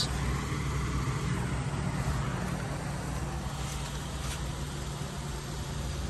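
A steady low mechanical hum with a faint even hiss over it, unchanging throughout.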